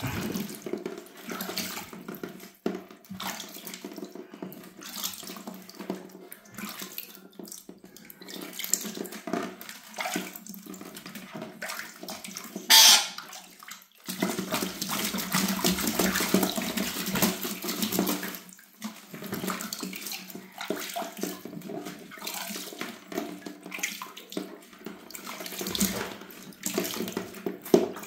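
Water splashing in a plastic bucket as a black-capped lory thrashes in it and a hand sloshes water over it, in uneven splashes with one sharp, louder burst about thirteen seconds in.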